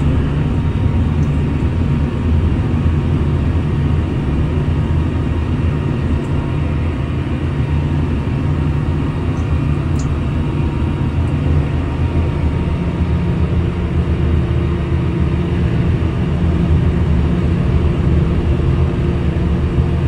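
Ship's deck crane running steadily while lowering a load, a constant low motor-and-hydraulic drone heard from inside the crane cab.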